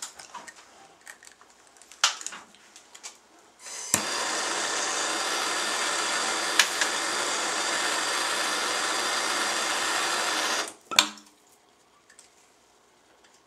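Plumber's soldering torch lit with a sharp click, hissing steadily for about seven seconds as it heats a pipe joint for soldering, then shut off abruptly. A few scattered clicks and knocks come before and after.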